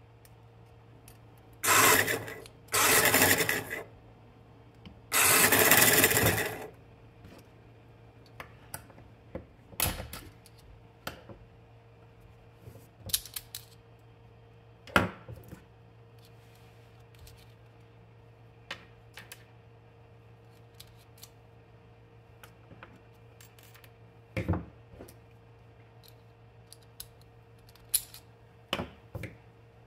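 Metal scraping as a small DC motor's housing is worked apart with hand tools: three harsh scrapes in the first seven seconds, then scattered clicks and taps of small parts and tools on a wooden desk.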